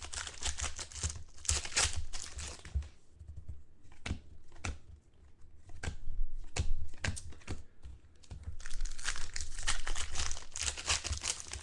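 Trading card pack wrappers crinkling and tearing as packs are opened and cards are handled. The crackling is dense for the first few seconds and again near the end, with scattered sharp clicks in between.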